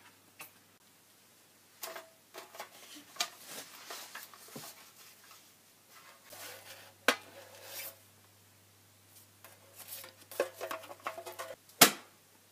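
Handling noise: irregular rustles, light scrapes and taps from small objects being moved about, with a sharp click about seven seconds in and a louder one near the end.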